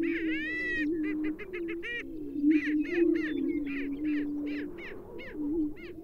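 Greater prairie-chickens on a lek: several males booming, a low hollow tone that overlaps and steps up and down without a break, with many short, higher calls repeated over it.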